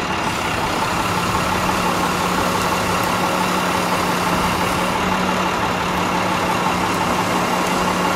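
Work truck's engine idling steadily with a constant hum, running the hydraulics of its truck-mounted knuckle-boom crane as it holds a stone marker in a sling.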